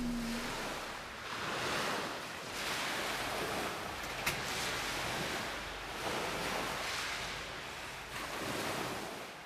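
Small waves washing onto a lakeshore: a soft, even hiss that swells and ebbs every second or two, then fades out near the end.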